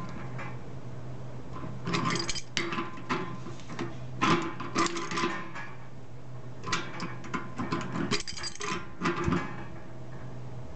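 A metal pipe coupling being threaded and tightened onto a threaded pipe nipple: spells of clicking and scraping metal, three bunches a second or two apart, over a low steady hum.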